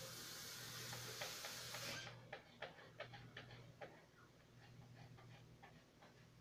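Kittens scrabbling in a woven basket of dishtowels: a rustling of cloth and basket for about two seconds that stops abruptly, then scattered light clicks and ticks as they shift about in the basket.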